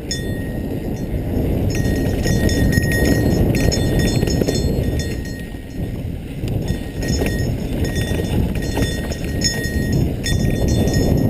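Santa Cruz Tallboy 29er mountain bike descending a dry dirt singletrack at speed: wind rushing over the camera microphone, with the tyres running on dirt and a steady clatter of rattles and knocks as the bike bumps over the rough trail.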